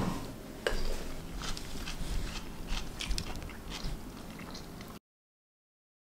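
Someone eating: a run of small crunches and clicks, then the sound cuts off suddenly about five seconds in.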